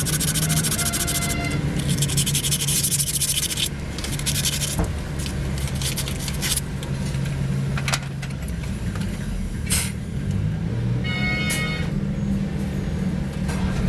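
Steady low engine hum with rasping scraping noise over the first few seconds, then several sharp metallic knocks and a brief high squeal near the end.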